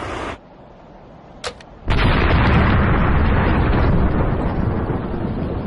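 Quarry rock blasting with explosives: a single sharp crack, then about two seconds in, a sudden loud blast that goes on rumbling heavily for several seconds.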